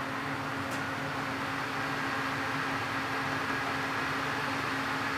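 Steady whir of equipment cooling fans with a constant low hum, with one faint click about a second in.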